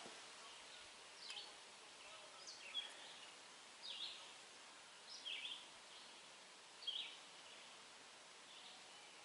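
Quiet outdoor ambience with faint, brief bird chirps every second or so.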